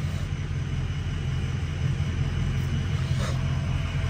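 2020 Dodge Challenger Scat Pack's 392 HEMI V8 running at a steady cruise, a steady low rumble with no revving.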